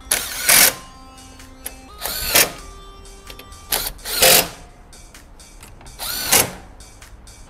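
Repeated short bursts of a shop power or air tool, about one every two seconds, over quiet background music.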